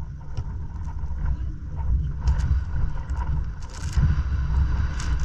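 Wind buffeting an outdoor camera microphone: a loud, uneven low rumble, with a few brief sharp sounds from the volleyball rally a little past two seconds in, around four seconds and near the end.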